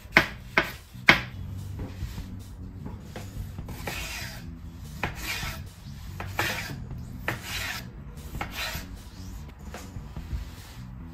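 Kitchen knife cutting on a wooden cutting board: three sharp knocks of the blade on the board in the first second or so as mushrooms are sliced, then irregular scraping strokes, about one a second, as the knife slices through tomatoes.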